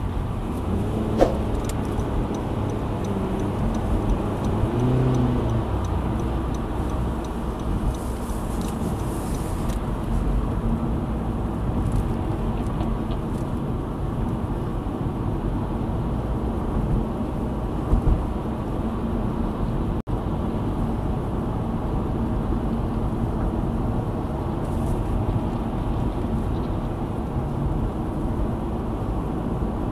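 Steady road and engine noise inside a car's cabin as it speeds up onto a highway. A light regular ticking runs through the first third, and a short thump comes a little past halfway.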